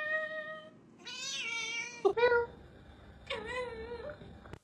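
A domestic cat meowing several times, each meow under a second long and separated by short pauses.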